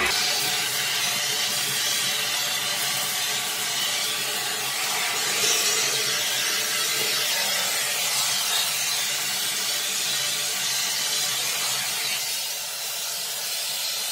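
Vacuum cleaner running steadily, sucking up chipped tile and grout debris around a shower drain.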